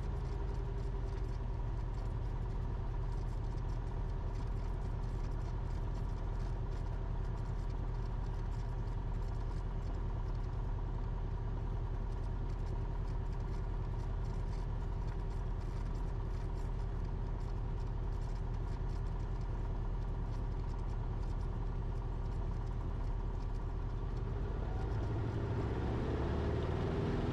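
Cessna 172RG's four-cylinder Lycoming engine and propeller running steadily at low power. Near the end the engine note starts to rise and get louder as power comes up for the takeoff roll.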